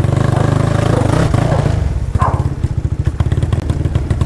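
Modified Honda Twister single-cylinder four-stroke motorcycle engine, bored to 79 mm with a performance cam and running on ethanol, running loudly through an aftermarket exhaust. It holds steady for about two seconds, then settles into an uneven, lumpy idle where the individual exhaust pulses stand out.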